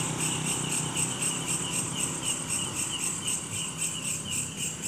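Crickets chirping in a fast, even pulse, about four to five pulses a second, over a faint low hum.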